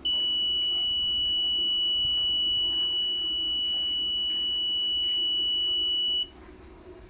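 Alarm buzzer of an Arduino Uno homemade smoke detector sounding one steady, high-pitched tone for about six seconds, then cutting off abruptly.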